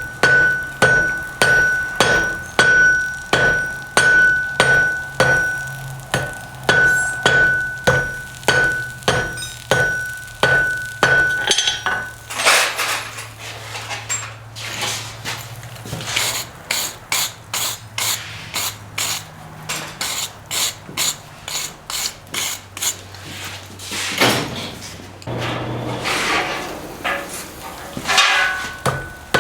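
Blacksmith's hammer striking hot iron on an anvil, a steady series of blows a little under two a second, with the anvil ringing on a high tone. A faster run of lighter strikes comes about halfway through.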